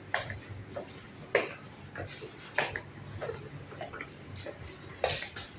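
Irregular sharp clicks and clinks, roughly one every second, over a low steady hum.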